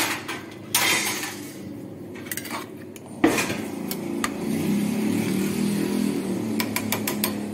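Metal spatula scraping and knocking against a kadai while stirring a wet potato-and-eggplant curry, with one hard clack a little past three seconds in. From about four seconds on a steady low rumble sets in, with a few light clinks near the end.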